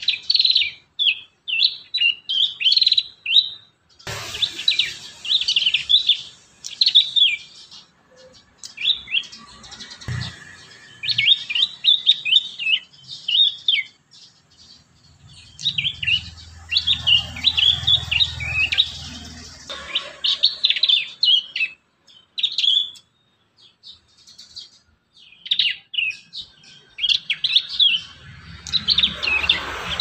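Prenjak (prinia) birds chirping: quick, sharp, high notes strung into rapid phrases, in bursts of a second or two with short pauses between them, many times over.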